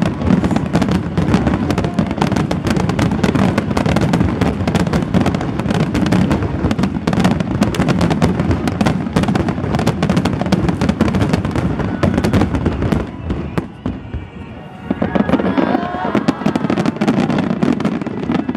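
Aerial firework shells in a finale barrage: a dense, continuous run of overlapping booms and crackles. It slackens briefly about three quarters of the way through, then a last volley follows.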